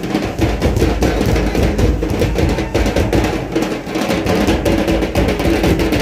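Folk dance music driven by fast, steady drumming, with many drum strokes a second and no break.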